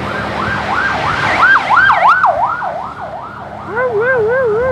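Basuri telolet horn playing a siren-like warble, its pitch swinging up and down a few times a second. Near the end it switches to a lower, fuller warbling note that stops abruptly.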